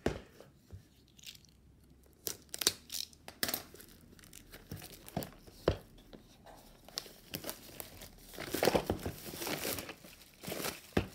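Plastic wrapping being torn and peeled off a cardboard game box, crinkling and tearing in irregular crackles, busiest from about eight to ten seconds in.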